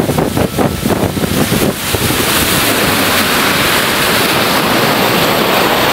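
Wind buffeting the microphone and water rushing past the hull of a bass boat running fast across a lake. The noise gusts unevenly for about the first two seconds, then settles into a steady, loud rush.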